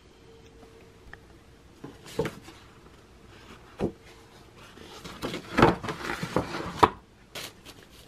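Paper and tissue packaging rustling and crinkling as a bag is unboxed by hand, with a few sharp taps early on and the densest, loudest crinkling from about five to seven seconds in.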